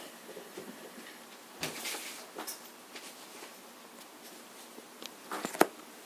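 Quiet handling noises: a brief rustle about a second and a half in, and a sharp click or knock near the end.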